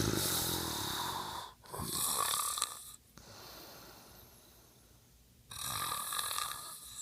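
A man snoring in his sleep: three loud, rasping snoring breaths with a quieter stretch between the second and third. The first breath, about a second and a half long, opens with a low rattle.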